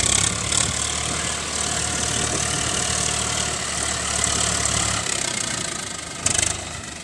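Swaraj 744 FE tractor's three-cylinder diesel engine running steadily as it drives slowly through soft mud close by. Its low hum drops away after about five seconds, and there is a brief louder burst of noise near the end.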